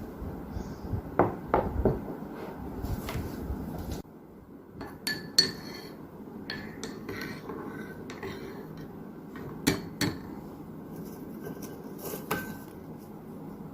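Tableware clinking and knocking in scattered, irregular strikes, a few of them ringing briefly, over a low background hiss that drops about four seconds in.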